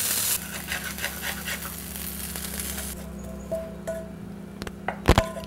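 Rice sizzling in a frying pan, cut off within the first half second; then quieter scraping and light clicks of a spatula sliding fried glutinous rice onto a serving plate, with a heavy knock near the end.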